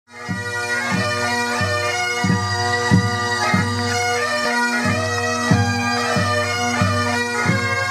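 Pipe band marching: bagpipes play a tune over their steady drones, with a drum beating about every two-thirds of a second. The music cuts in abruptly.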